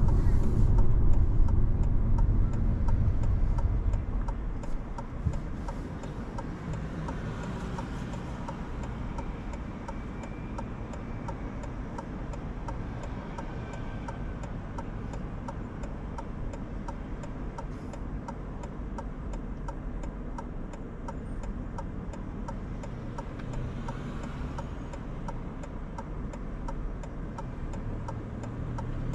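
Car running with low road and engine rumble that drops about four seconds in as the car slows, then a quiet idle with steady, evenly spaced ticking like a turn-signal indicator.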